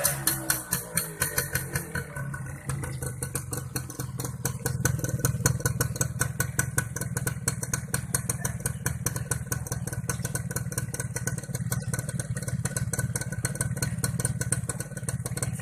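Yamaha F1ZR's 110cc two-stroke single-cylinder engine idling through its chrome muffler, with a rapid, even exhaust beat. It settles down from a higher, uneven running in the first two seconds to a steady idle.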